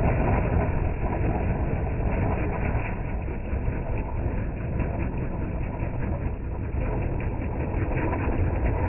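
Ground spinner firecracker (chakri) whirling on the ground as it burns: a steady rushing noise with fine crackles scattered through it.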